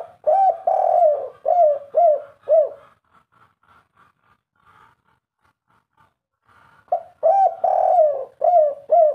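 Spotted dove cooing in the 'kuk 3' style: two phrases, each a run of about six short falling coos. The second phrase begins about seven seconds in.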